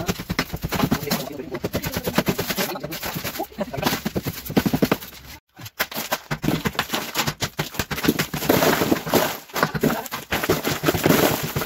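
Rapid, irregular hammering impacts, many per second, with a brief break about five and a half seconds in.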